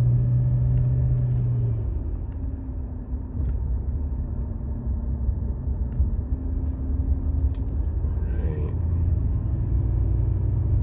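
1999 Jaguar XJ8's V8 engine and road rumble while the car is driven on a test run after an A/C compressor replacement. A steady engine hum drops away about two seconds in, leaving a lower, rougher rumble.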